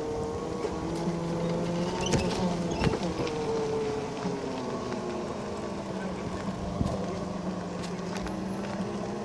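Battery-powered ride-on four-wheeler driving on asphalt: its electric motor and gearbox give a steady whine that dips slightly and recovers about three seconds in, over the rolling noise of the wheels, with a few sharp knocks.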